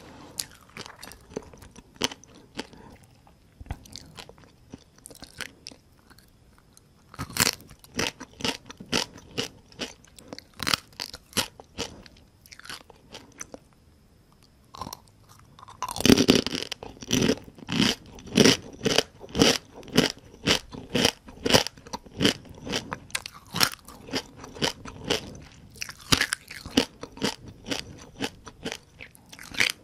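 Whole fried small rice-field crabs being bitten and chewed, shells crunching. The crunches are sparse at first, come in a dense run about a quarter of the way in, pause briefly, then come loudest and thickest from about halfway on.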